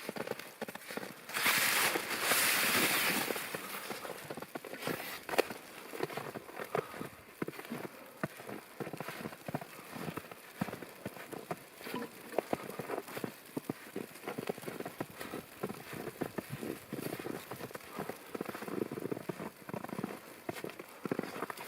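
Footsteps through fresh wet snow under a dense crackle of falling snow and drips ticking on an umbrella. A louder brushing rustle comes about a second and a half in and lasts about two seconds.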